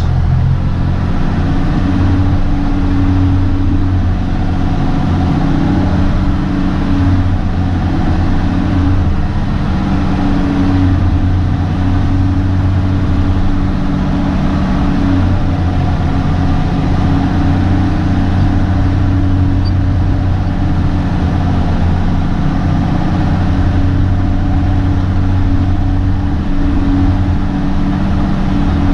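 CAT 615C elevator scraper's diesel engine running steadily under work, heard from inside the cab as a loud, even drone.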